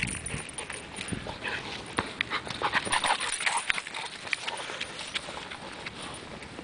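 A large American bully dog running and playing on grass, with quick running footfalls and sharp clicks and rattles, densest two to four seconds in.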